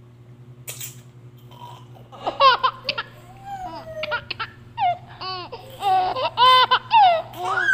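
A baby laughing in high-pitched giggles and squeals, in short runs from about two seconds in, over a steady low hum.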